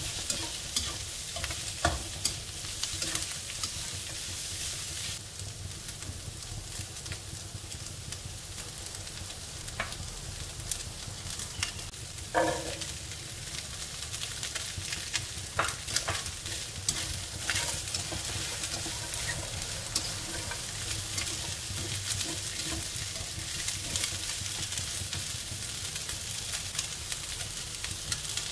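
Sliced pork, mushrooms and Chinese long beans sizzling in a wok as a spatula stirs and tosses them, with frequent clicks and scrapes of the spatula against the pan.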